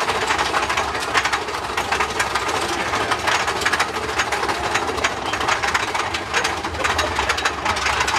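Big Thunder Mountain Railroad mine-train roller coaster running along its track: a rapid, continuous clattering and rattling of the cars and wheels over a steady rumble.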